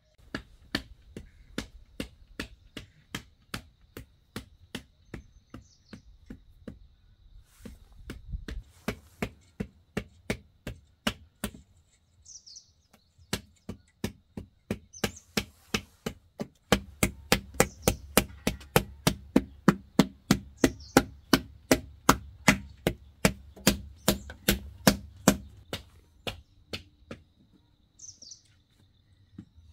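Rapid, even chopping strokes, about three a second, with a short pause about twelve seconds in; the strokes become heavier later on and stop near the end. Birds chirp now and then.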